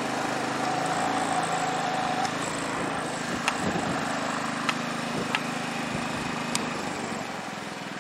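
Generac IQ3500 inverter generator running steadily under a 1500-watt heater load, with a few light clicks over it.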